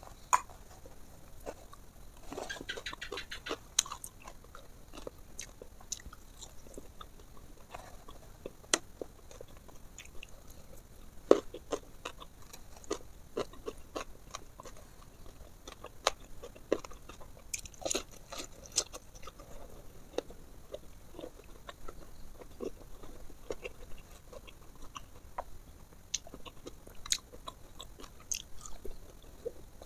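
Close-miked eating: chewing and crunching fried fish, with many short, sharp crackling clicks scattered throughout and a denser stretch of crunching about two to four seconds in.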